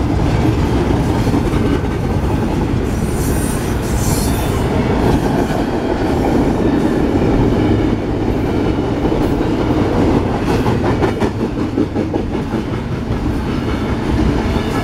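Union Pacific double-stack intermodal freight train's well cars rolling past close by: a loud, steady rumble of steel wheels on rail, with irregular clacking over the rail joints.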